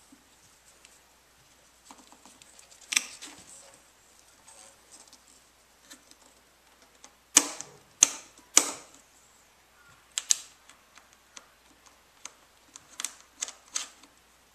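Sharp, irregular clicks and taps from hands fitting a plastic zip tie around a motorcycle's exhaust hanger and chrome muffler. Three loud clicks come about half a second apart a little past the middle, with another few clicks near the end.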